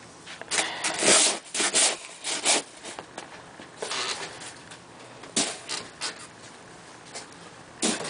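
Snow shovel scraping along a concrete walkway and scooping heavy snow: a quick run of rough scrapes in the first few seconds, then a few scattered single scrapes.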